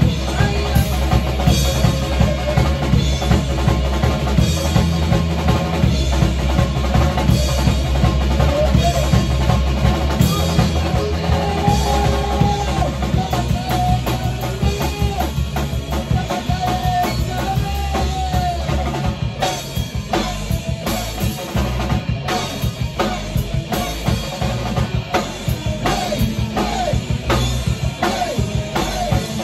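Rock band playing in a small rehearsal studio: drum kit, bass and electric guitar, with a saxophone in the line-up. A wavering melody line comes in over the band about eleven seconds in, and the heavy bottom end thins out a little after about nineteen seconds.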